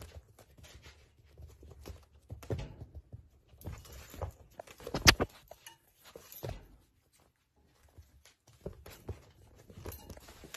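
Dachshund puppies shuffling and scrabbling in their bed, rustling the blankets with irregular small scuffs and taps, and one sharp click about five seconds in.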